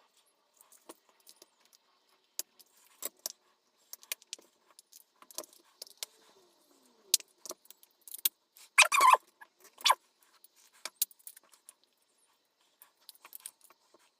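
Scattered sharp clicks and clatter from the small plastic casing of a handheld fan being handled and pulled apart by hand, with a louder burst of clatter about nine seconds in.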